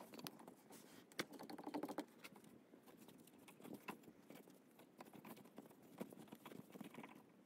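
Faint small clicks and scrapes of a threading die being turned by hand on a stainless steel rod, the die holder working against its tailstock support, with a sharper click about a second in.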